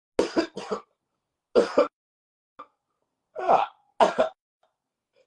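A man coughing repeatedly in short bouts of one to three coughs while smoking cannabis, a cough he himself takes for a sign that the weed is strong ("gas").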